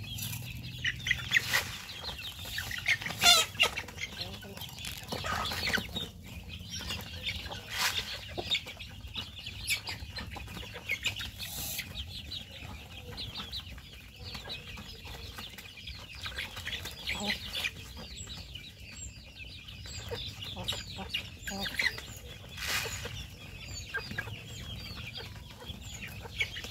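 A flock of chickens clucking and calling as they peck at the ground: many short, overlapping calls, with a few louder calls standing out.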